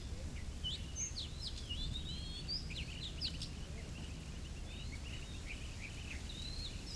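Several small birds chirping in quick, overlapping short calls, over a steady low rumble.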